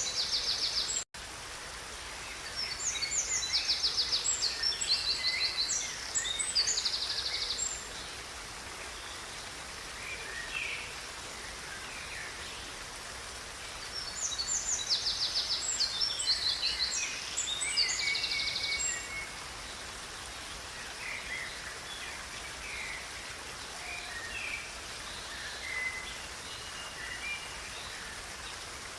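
Songbirds singing fast, high trills and chirps in two long bursts, with scattered single calls between, over the steady rush of a river. The sound cuts out for an instant about a second in.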